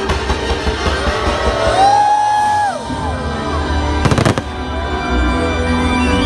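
Fireworks show music playing loud while fireworks are launched, with a quick run of sharp cracks about four seconds in.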